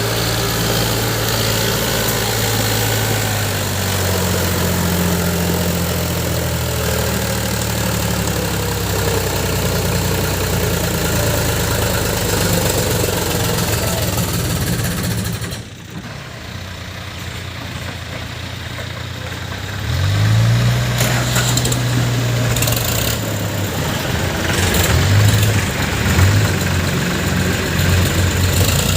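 Heavy diesel engine running steadily. The sound drops off suddenly about sixteen seconds in, then the engine revs up about twenty seconds in and rises and falls unevenly after that, as if working under load.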